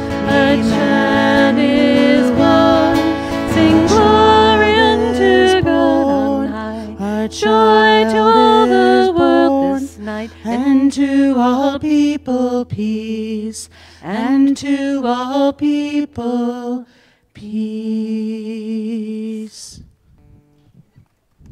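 A woman singing with a strummed acoustic guitar, her voice wavering with vibrato. The song winds down to a long held final note and chord about three-quarters of the way through, then dies away.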